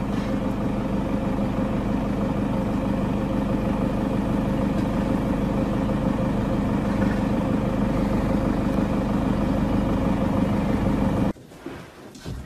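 A vehicle engine running steadily at a constant pitch, with no revving, that cuts off abruptly near the end.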